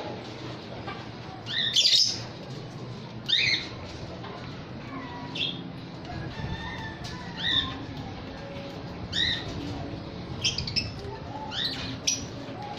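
Small parrots giving short, shrill squawking calls, about ten of them, one every second or two, a few in quick pairs near the end. A steady low hum runs underneath.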